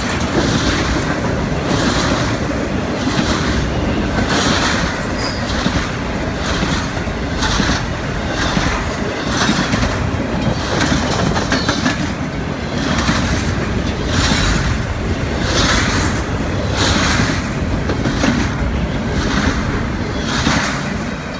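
Double-stack intermodal freight cars of a CSX train rolling past: a steady rumble of wheels on rail, with a rhythmic clatter coming back about once a second.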